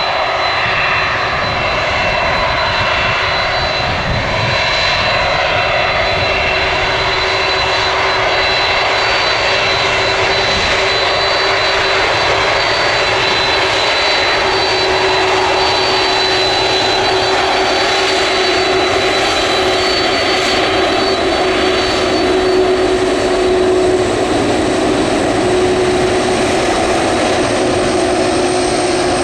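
Jet airliner engines running loud and steady: a broad rush of exhaust noise with several high, steady whining tones on top.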